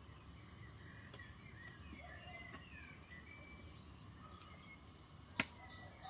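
Faint birdsong: thin chirps and warbles, with one sharp click about five and a half seconds in.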